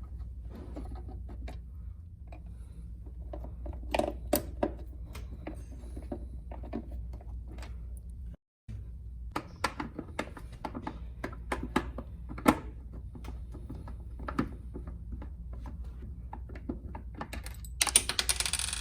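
Screws being taken out of the plastic housing of an under-desk bike by hand with a screwdriver: scattered clicks and knocks of the tool and plastic, over a low steady hum, with a short dense rattle near the end.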